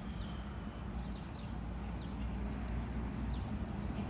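Several faint, short bird chirps scattered over a steady low background rumble.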